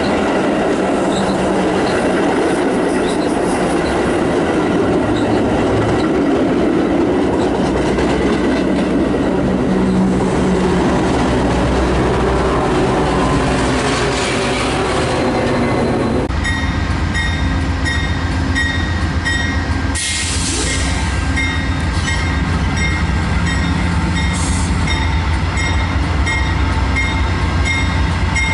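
A train passing close by, with a loud rolling rumble of wheels on rail and some wheel squeal. About two-thirds of the way in the sound changes abruptly to a steady low drone with a high ringing that repeats a couple of times a second.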